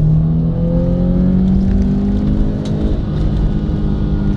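Subaru Impreza rally car's flat-four boxer engine pulling under acceleration, heard from inside the cabin. Its pitch rises steadily for about three seconds and then holds, over a steady rumble of road and tyre noise.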